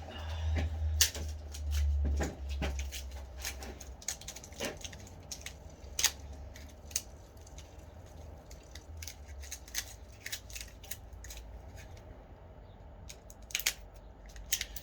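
Irregular sharp clicks and light knocks of hand work on copper pipework and fittings, with a low rumble in the first few seconds.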